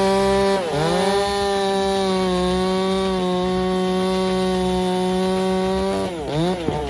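Two-stroke chainsaw running at high revs while cutting through a large log. Its pitch sags sharply about half a second in and again twice near the end, then recovers, as the chain bites into the hardwood under load.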